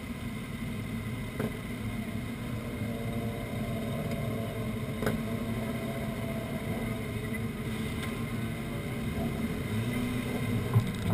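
Honda CBR929RR's inline-four engine idling steadily, heard close up. A couple of sharp knocks near the end as the rider climbs onto the bike.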